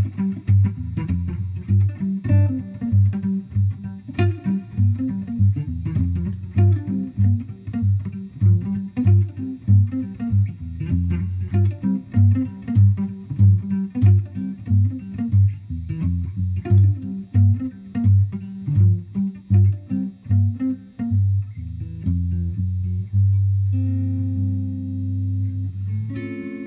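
Two D'Angelico electric guitars playing a funk groove: a rhythmic line of short, punchy low notes with picked single notes and chord stabs above it. Near the end the rhythm stops on a long low note that rings out and fades.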